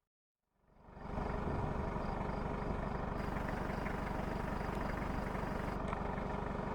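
Vehicle engine running steadily with an even hum. It fades in about a second in and fades out at the end.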